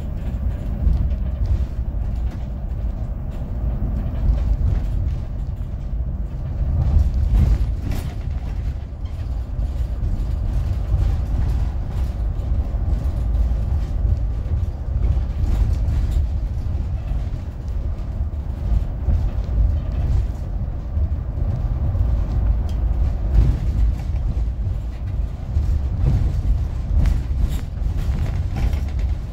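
City bus driving along: a steady low rumble of engine and tyres, with scattered creaks and rattles from the bus body.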